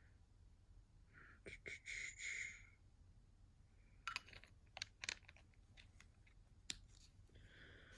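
Near silence with a few faint, scattered clicks and a brief soft rustle early on.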